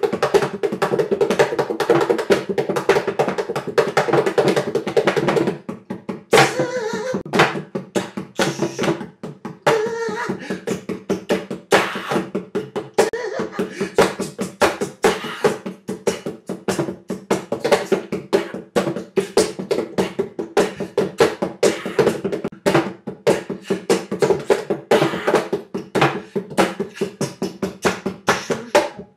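Hand percussion played on the back of a guitar's body, multitracked: quick, dense finger taps and knocks with a hollow body ring. The tapping is busiest for the first five seconds or so, then breaks into a looser, sparser pattern of sharp strikes.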